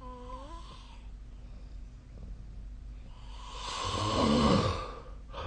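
A sleeping person snoring: one loud snore that builds over about two seconds, peaks, and stops near the end, after a brief squeaky sound at the start.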